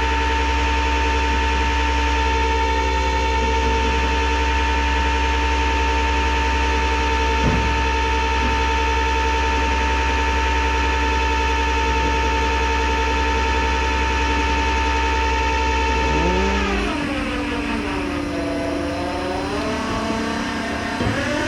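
Truck engine and drivetrain running at a steady cruising speed with a steady whine. About three quarters of the way through, the whine's pitch dips and climbs again as the truck slows and picks up speed.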